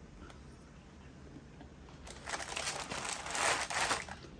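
Food packaging crinkling as it is handled and opened, starting about two seconds in and lasting about two seconds.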